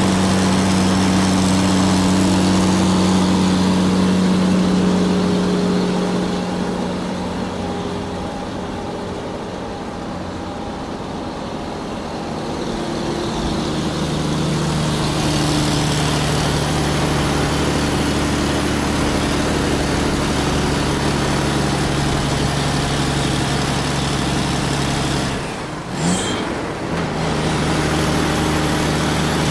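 Steady engine drone holding an even pitch. The pitch drops slightly about halfway through, and the drone breaks off briefly near the end before returning.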